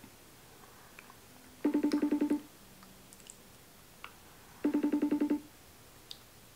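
iPhone FaceTime outgoing-call ringing tone: a short trill of rapid pulses, heard twice about three seconds apart while the call waits to be answered.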